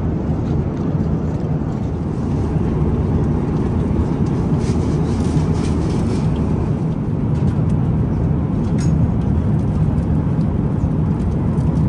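Steady low rush of airliner cabin noise in flight, an Airbus A350-900's engines and airflow, with a few faint clicks in the middle.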